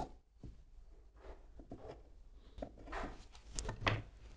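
Faint snip of scissors notching the edge of a piece of cotton fabric, then soft rustling and brushing of the cloth as it is handled on the table, a little louder near the end.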